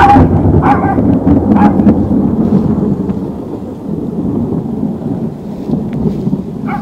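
Thunder: a long, loud rumble that swells at once and slowly fades over several seconds. A small Maltese dog barks at it, three short barks in the first two seconds and one more near the end.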